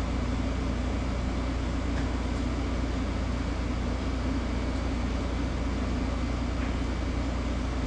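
Steady low hum and fan-like rushing of machinery running, with a couple of faint clicks.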